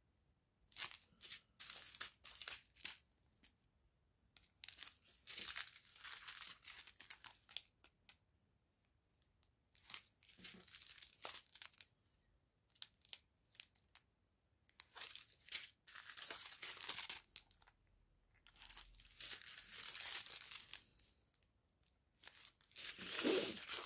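Thin clear plastic sachets of round diamond-painting drills crinkling as they are handled, in about six short bursts of a second or two with quiet gaps between.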